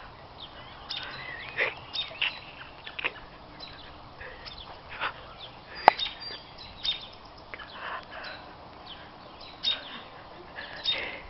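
Birds calling with scattered short chirps and calls, some with small rising and falling glides; a single sharp click about six seconds in is the loudest sound.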